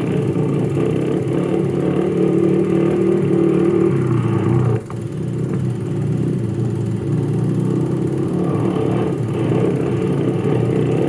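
Single-cylinder four-stroke 250 cc trail bike engines running under throttle at fairly steady revs. The sound dips briefly and shifts about five seconds in.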